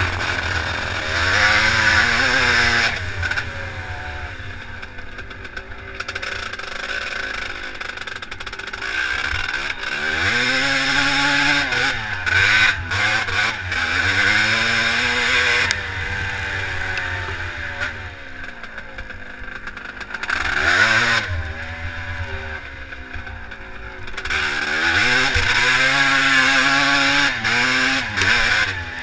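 Vintage twinshock motocross bike engine, heard close from a camera on the rider, revving up and down as it rides, its pitch rising and falling again and again with throttle and gear changes. It runs loud about a third of the way in, again mid-way and near the end, dropping back to lower revs in between.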